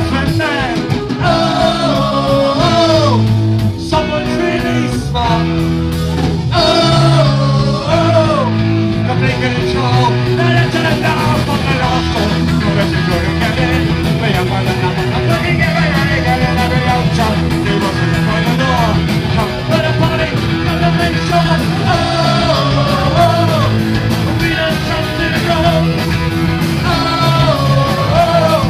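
Live punk rock band playing loud: a male lead vocal sung into a microphone over distorted electric guitar, electric bass guitar and a drum kit, with a steady driving beat.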